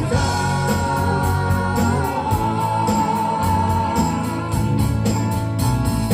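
Live rock band playing, with a keyboard holding a long organ chord over electric guitar, bass guitar and drums.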